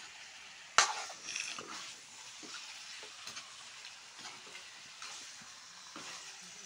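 Hen meat frying with a steady sizzle in a black iron kadai while a metal ladle stirs it. The ladle knocks sharply against the pan about a second in, then scrapes, with lighter clinks after.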